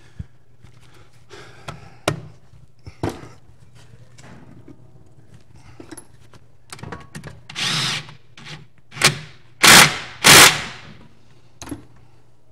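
Short bursts of a cordless power tool running in brake caliper mounting bolts, the last two near the end the loudest. Scattered clinks and knocks of tools and parts come in between.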